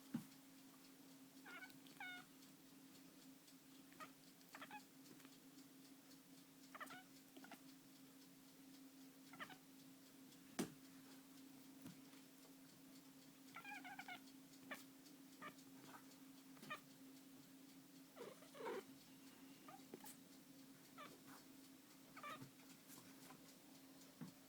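Domestic cat shaking her jaw and making short, strange high calls, scattered singly or a few at a time, about a dozen in all.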